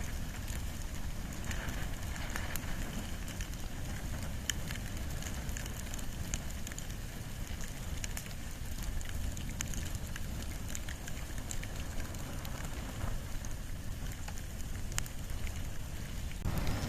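Bonfire of wood and bamboo burning: a steady low rush of flames with scattered sharp crackles and pops.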